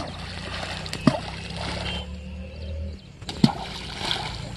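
Hand-thrown balls of flour-and-bran groundbait splashing into a river, about three times a second or two apart. A low steady hum runs under the first three seconds.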